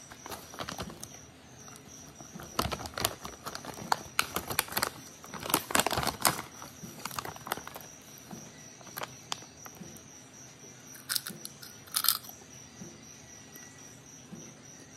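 Potato chips being eaten from a crinkly foil bag: irregular crisp crunches and crackles, thick in the first half and a few scattered clusters later. A cricket chirps steadily in the background.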